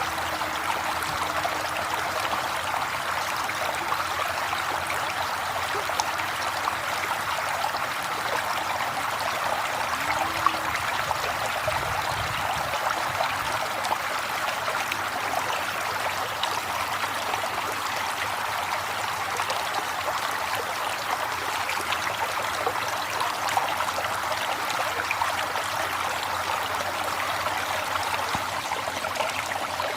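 River water flowing: a steady, even rush and babble of moving water.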